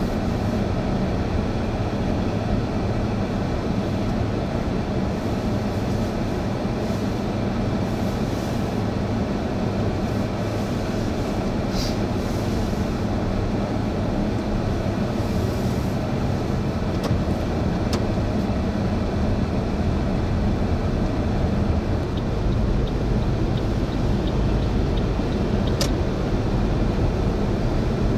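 Steady road and engine noise of a moving vehicle, with a low hum and a few faint clicks.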